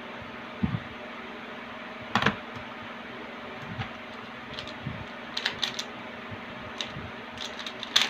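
A plastic Pyraminx puzzle being turned quickly in a speedsolve: scattered sharp plastic clicks, with a loud one about two seconds in, a quick cluster around the middle and more near the end, over a steady fan hum.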